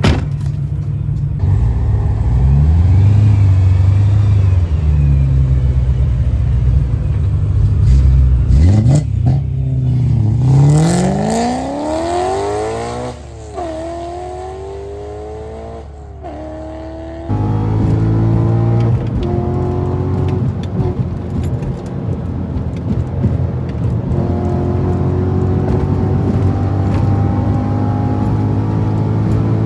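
BMW Z4 35iS twin-turbo straight-six pulling hard through the gears, its pitch rising steeply and dropping at two upshifts. The sound then changes abruptly to the engine running at a steadier, slowly climbing speed.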